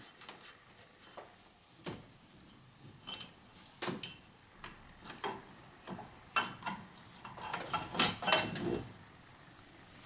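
Irregular metal clinks and knocks as the stock cast Ford Focus gear shifter is worked loose and lifted off the gearbox selector shaft, with a busier run of taps near the end.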